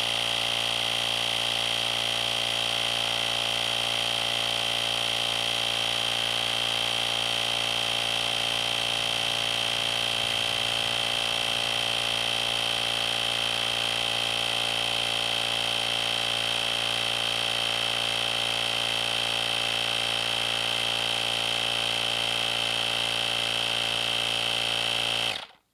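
Parkside 20 V cordless tyre inflator running steadily with a high-pitched whine, pumping up a deflated motorcycle tyre as the pressure climbs from about 1.6 to 2.2 bar. It stops abruptly near the end.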